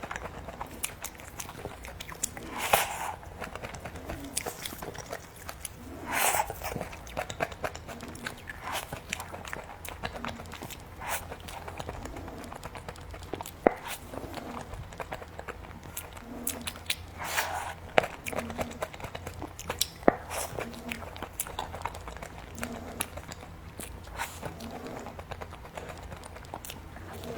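Close-miked mouth sounds of eating cookies and cream: biting and chewing with many small wet mouth clicks, and a few louder bites standing out.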